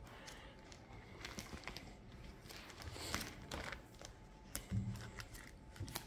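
Trading cards being slid into and pressed down in the clear plastic pocket pages of a card album: faint, scattered rustling of plastic with light clicks and taps.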